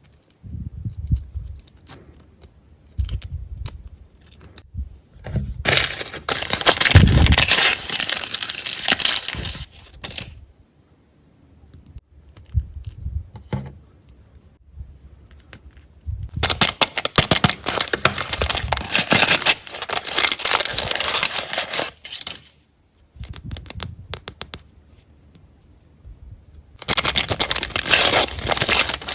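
Plastic toy packaging crinkling and tearing as it is opened by hand, in three long spells, with quieter rustling and handling between them.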